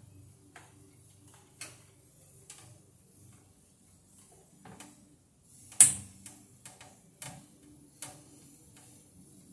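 Scattered light clicks and taps of hands, tools and wire working inside a metal breaker panel, with one sharp, much louder click a little under six seconds in.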